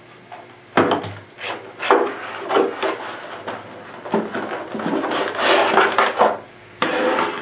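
Rigid clear plastic clamshell packaging crackling, rubbing and knocking as it is handled and pulled apart, starting about a second in, in irregular bursts.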